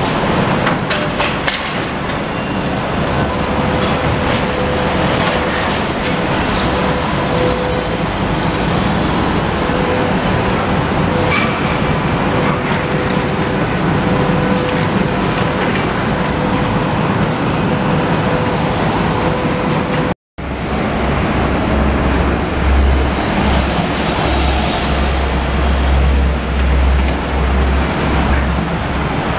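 Road vehicle noise: a steady engine drone with a constant hum through the first two-thirds. After a sudden break, street traffic passes with a heavy, uneven low rumble.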